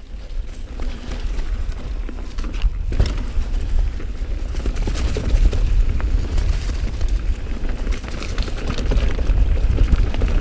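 Mountain bike descending a rough, leaf-covered singletrack at speed: tyres rumbling and crunching over the ground with frequent clicks and rattles from the bike, under heavy wind buffeting on the camera microphone that grows louder through the run.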